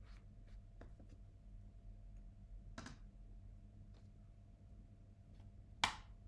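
Watercolour brush making a few short, faint scratchy strokes on paper, with a sharper click or knock near the end.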